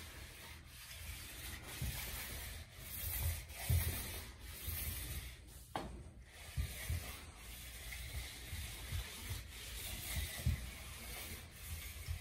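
Foam sleeve of a Wonder Roller, a paint roller with a built-in paint reservoir, rolled back and forth over a wall on a broom-handle extension: a dry rubbing with soft, irregular low bumps from the strokes. No paint is feeding through yet, so the roller is running dry.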